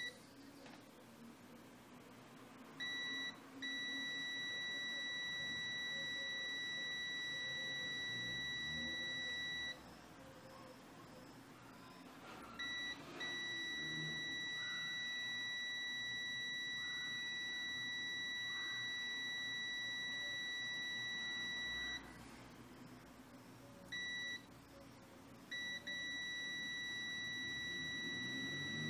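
Extech EX355 multimeter's continuity beeper sounding a steady high-pitched tone that cuts out for two or three seconds three times, coming back each time with a short blip before resuming. The meter keeps showing a low resistance, so the probes are connected: the beeper is dropping out intermittently, the fault being shown.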